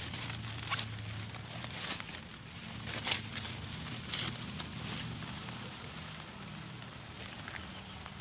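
Wet leaves and grass rustling and crackling as a hand pushes through dense undergrowth: short sharp brushes about once a second for the first few seconds, then quieter, over a faint low hum.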